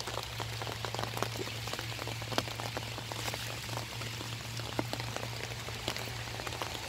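Rain falling, with many separate drops ticking at irregular intervals over a steady hiss and a low steady hum.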